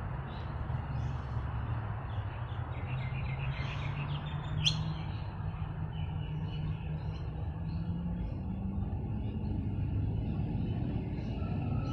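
Outdoor garden ambience: small birds chirping now and then over a steady low rumble, with one sharp rising chirp about halfway through that stands out as the loudest sound.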